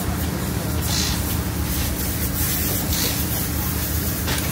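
Steady mechanical hum under a constant hiss, with short bursts of hiss about a second in and again about three seconds in.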